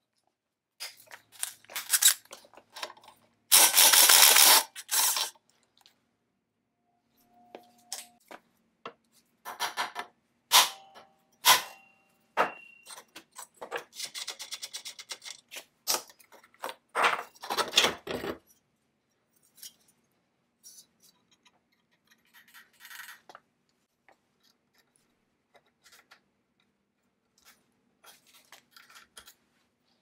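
Hands and tools working on the metal parts of a 1929 Maytag Multi-Motor engine during disassembly: scattered clinks, clicks and scrapes, with a quick run of clicks midway. There are two louder noisy bursts, about four seconds in and again near seventeen seconds.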